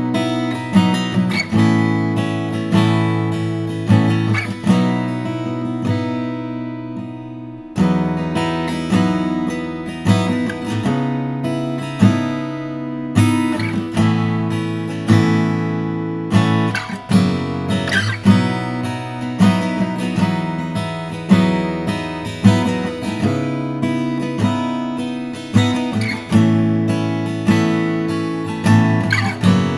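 TYMA D-25CE acoustic-electric dreadnought guitar, with a solid Engelmann spruce top, Santos back and sides and D'Addario EXP16 coated 12-gauge strings, played with a pick: chords and melody notes, each stroke ringing out and fading, with the chord changing every second or so.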